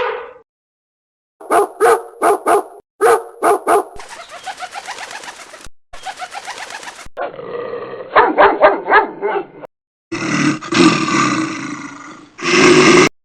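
A string of short animal-call recordings spliced back to back with abrupt cuts and brief silences between them. It opens with groups of short repeated calls, followed by stretches of rapid pulsing calls.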